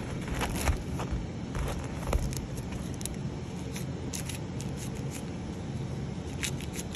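Scattered light crackles, clicks and scrapes as support pieces are worked out of a 3D-printed slide, over a steady low background rumble.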